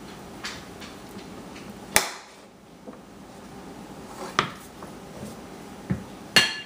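Hard objects being banged, a few separate sharp clanks spaced irregularly, the loudest about two seconds in and the last near the end ringing briefly like struck metal or a pot.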